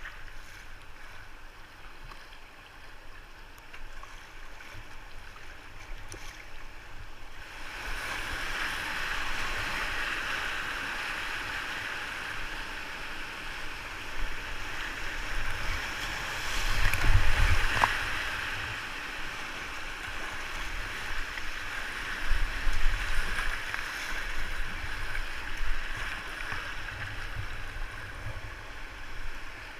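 Rushing river water heard from a kayak: a soft steady rush at first, turning into a louder whitewater rush about eight seconds in as the boat runs the rapids. A few heavy low rumbles hit the microphone around the middle and again later.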